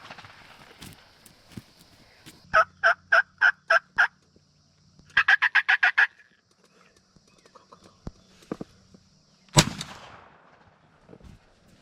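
Wild turkey calls: a series of six evenly spaced yelp-like notes, then a faster rattling run of about ten notes like a gobble. About two-thirds of the way through comes a single loud shotgun blast that takes the tom.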